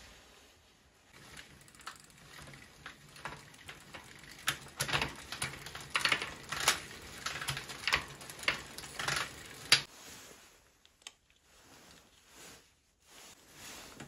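Irregular mechanical clicking and rattling from a bicycle's rear drivetrain, a chain turning the wheel on a SRAM Spectro S7 seven-speed internal gear hub. It is loudest in the middle and dies away about ten seconds in.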